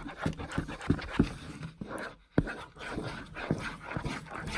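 Metal spoon stirring glue and orange dye in a bowl: a quick, uneven run of wet swishes and scrapes, several a second.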